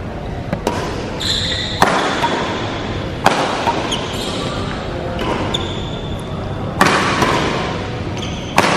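Badminton rackets striking a shuttlecock in an echoing sports hall during a rally: about five sharp hits a second or two apart. Several brief high squeaks of court shoes on the floor come between the hits.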